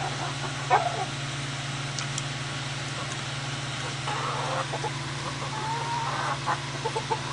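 Chickens clucking and calling, with one sharp call about a second in and a quick run of clucks near the end, over a steady low hum.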